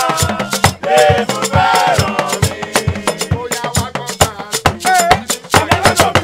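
A group of men singing together over hand drums and a shaken bead rattle, playing a fast, busy beat.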